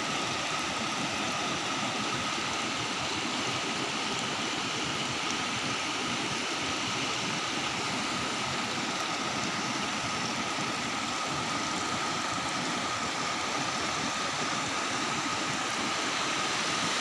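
Shallow rocky stream rushing over stones, a steady even rush of water. A thin steady high tone runs under it.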